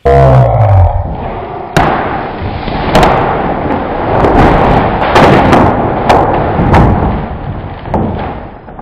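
A shopping bag full of groceries handled and swung close to the microphone: loud, continuous rustling with a string of sharp thumps and knocks. The first is a sudden heavy hit.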